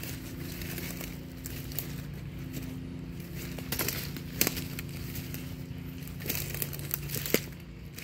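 Footsteps crunching through dry leaf litter and brush, with crackles and a few sharp twig snaps, the loudest about halfway through and near the end. A steady low hum runs underneath.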